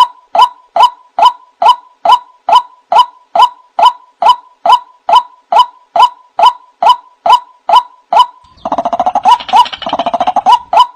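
White-breasted waterhen (ruak-ruak) calls played as a bird lure: short, harsh downward-curving notes repeated evenly about twice a second. About three-quarters of the way in, a rougher, denser burst of lower calls overlaps the series for about two seconds.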